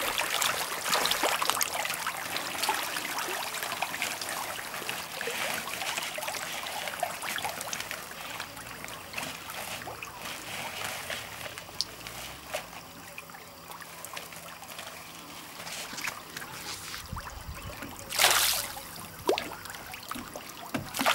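A crowd of caged fish thrashing and splashing at the water's surface as they feed: a dense, crackling patter of many small splashes, busiest at first and thinning later, with one brief louder burst near the end.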